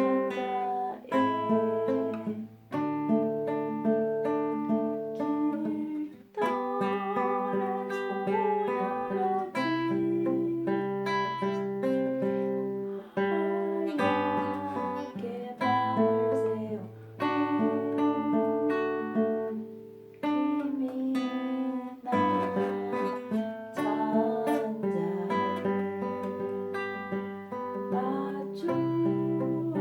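Acoustic guitar playing a slow melody over long-held bass notes, with a few short pauses between phrases.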